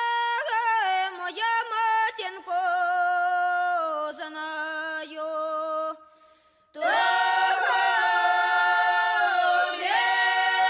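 Background music: unaccompanied vocal singing, voices holding long notes that slide between pitches. It breaks off for under a second about six seconds in, then resumes louder.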